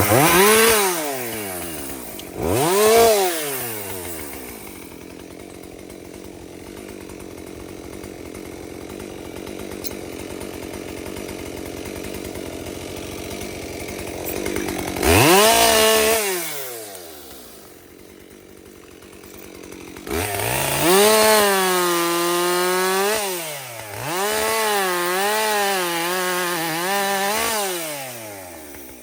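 Two-stroke chainsaw blipped up to speed a few times with idling in between, then held at high revs for several seconds at a time near the end, its pitch sagging and recovering as it cuts into the pine log.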